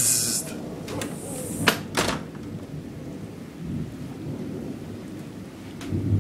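Thunderstorm: thunder rumbling over steady rain, with a loud burst right at the start and a few sharp cracks in the first two seconds.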